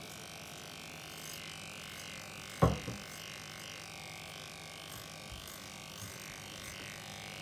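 Electric dog grooming clippers running steadily, trimming a miniature schnauzer's fur under the ear. About two and a half seconds in there is a single short, loud thump.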